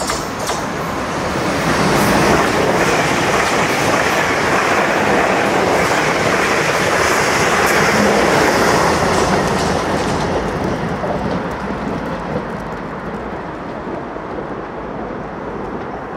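South Western Railway Siemens Desiro electric multiple unit running past at speed, with steady wheel-on-rail noise and rushing air. It builds over the first couple of seconds, is loudest through the middle, and fades in the last few seconds as the train draws away.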